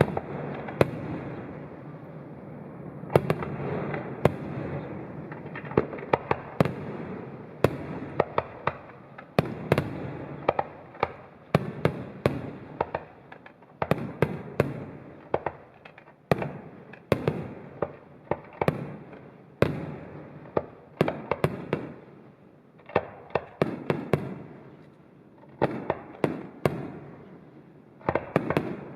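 Aerial fireworks display: a rapid series of sharp bangs from bursting shells, often several a second, over continuous crackling that swells and fades.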